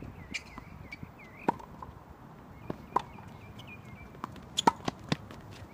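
Tennis rally on a hard court: sharp pops of the ball being struck by rackets and bouncing, several in turn, the loudest hit about three-quarters of the way through. A faint run of high chirps sounds behind.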